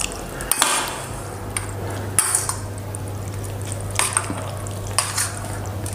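A metal fork stirring noodles in a stainless steel bowl, with several sharp clinks and scrapes of metal on metal, over a steady low hum.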